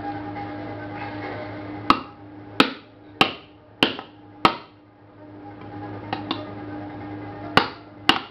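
Hammer blows on a metal case from a stripped microwave, struck to break it open: five sharp blows about two-thirds of a second apart, then after a pause two lighter taps and two more blows near the end.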